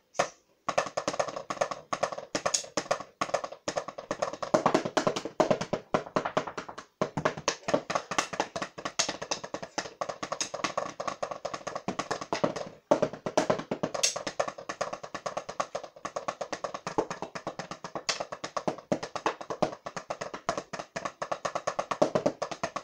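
Wooden drumsticks beating rapidly on two rubber drum practice pads: a dense, uneven stream of sharp taps, breaking off briefly about seven and thirteen seconds in.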